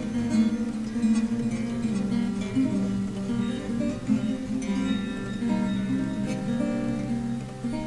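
Background music: acoustic guitar strummed and plucked, with a flamenco-like feel.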